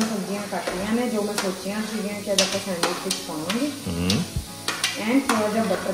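Sliced mushrooms sizzling in a frying pan as chopped onion, tomato and capsicum are scraped in and stirred, with sharp clicks of a spoon against the plate and pan. A tune plays underneath.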